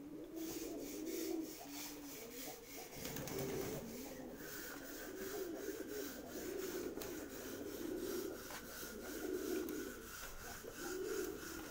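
Domestic pigeons cooing over and over in the loft, several birds overlapping. A rapid scratchy rasping ticks along with them, several times a second.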